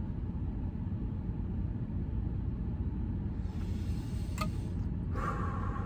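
Steady low rumble of a running car heard inside its cabin, with a single short click about four and a half seconds in.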